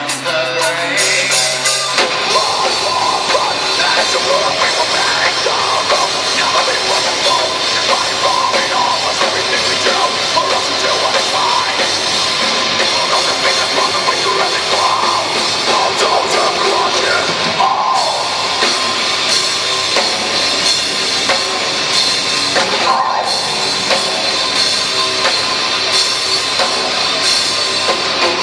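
Live rock band playing loud, with drum kit and heavy guitars; the full band comes in about two seconds in after a thinner opening over a low held note.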